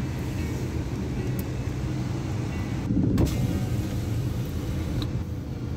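Heavy rain falling on a car, heard from inside the cabin over a steady low rumble, briefly louder about three seconds in.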